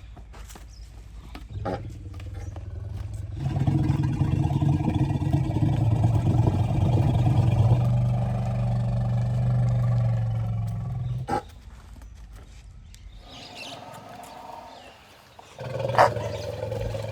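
Asian elephant rumbling: one long, low rumble lasting several seconds, then a quieter stretch, and another low rumble starting near the end.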